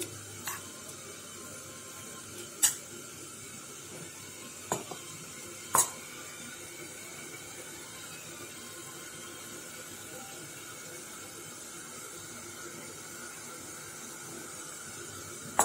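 A steel spoon knocking against a steel bowl of thick chutney as it is stirred: four short clinks in the first six seconds, the second the loudest, over a steady faint hiss.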